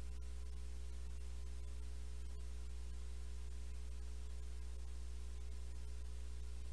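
Steady low electrical hum with a ladder of overtones under an even hiss, with a couple of faint clicks, about a second and two and a half seconds in.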